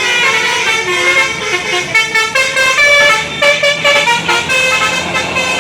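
Telolet horn on a Basuri bus: a multi-tone horn playing a quick tune of stepped notes, one after another.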